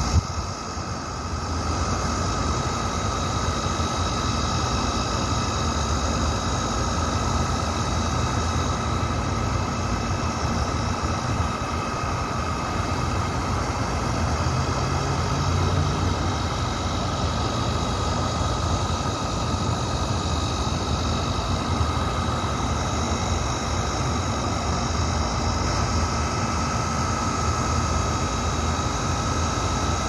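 Steady mechanical drone: a low rumble with several constant high whining tones over a hiss, unchanging throughout.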